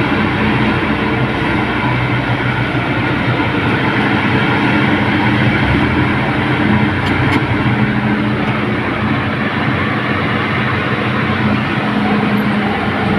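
Excavator engine running steadily: a continuous drone with several steady low tones that hold their pitch throughout.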